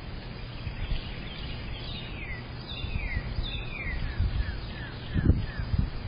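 A bird singing: a run of about ten short, falling whistled notes that come close together at first and then spread out, over a steady low rumble, with a brief low bump about five seconds in.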